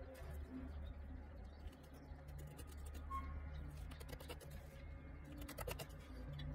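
Small, quick clicks and crackles as a knife slits down the belly wall of a skinned masked palm civet carcass, the clicks coming thickest near the end, over a low steady rumble.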